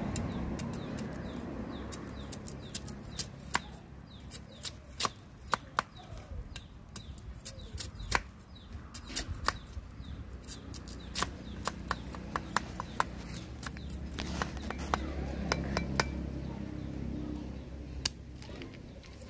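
A heavy cleaver chopping and shaving a fresh bamboo shoot on a wooden block: irregular sharp chops, a few a second. A low rumble swells in the background past the middle and fades near the end.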